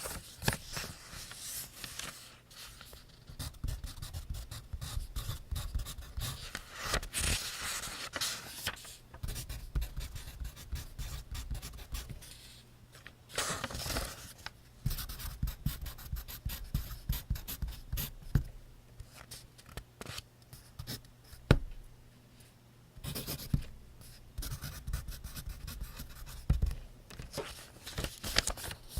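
Pencil scratching on paper in quick, irregular strokes, with the lead tapping on the page now and then. A few longer paper rustles stand out among the strokes.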